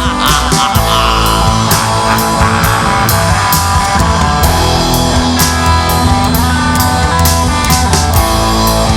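Rock band playing an instrumental passage: guitar over a drum kit keeping a steady beat, with no singing.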